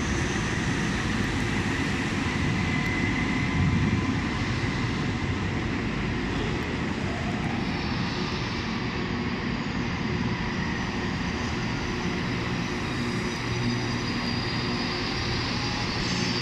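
Regiolis multiple-unit train pulling out of the station, its engines and traction motors giving a steady drone, a little louder about four seconds in.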